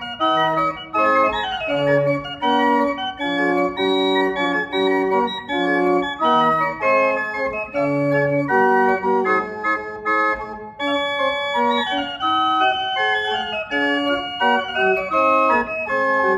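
Small Sauer pipe organ played by hand: a Christmas improvisation of chords and melody lines in short, often detached notes.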